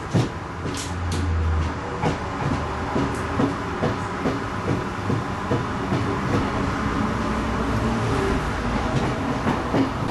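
Electric commuter train running, heard from inside the carriage: a steady rumble with regular clacks of the wheels over the rail joints, about two a second.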